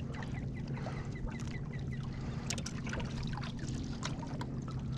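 A steady low mechanical hum aboard a fishing boat, with scattered small clicks and light splashes as fishing line and tackle are handled at the water.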